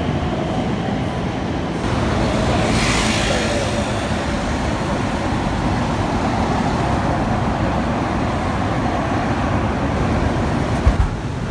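City street traffic noise: cars passing on a busy road, with a brief thump near the end.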